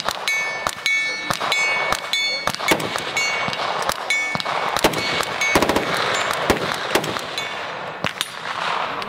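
Rifle gunfire on a busy firing line: many sharp shots at irregular intervals, often several a second, some followed by a brief ringing tone.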